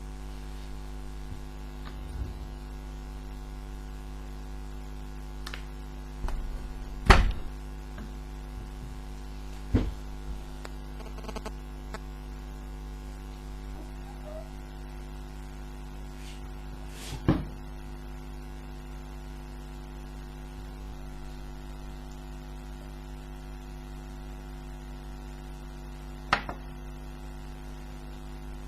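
Steady electrical mains hum, broken by a few short knocks or clicks. The loudest comes about seven seconds in, with others around ten, seventeen and twenty-six seconds in.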